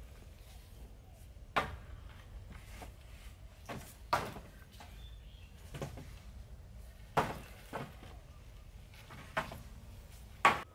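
Wood being chopped with a hand tool: about eight sharp knocks at uneven intervals a second or two apart, the loudest near the end.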